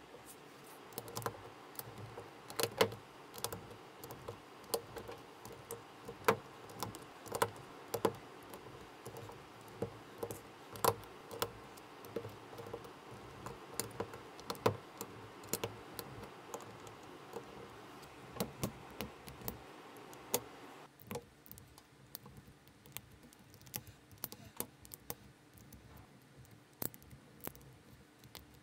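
Plastic LEGO-compatible bricks being handled and pressed together: irregular sharp clicks and taps, a few a second. The low background hiss drops away about three-quarters of the way through.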